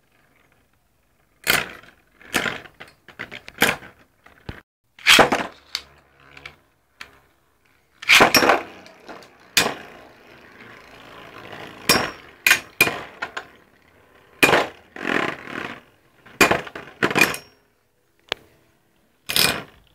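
Beyblade spinning tops clashing with each other and knocking against the wall of a plastic stadium: a long series of sharp, irregular clacks, some loud, with a faint scraping hiss between hits.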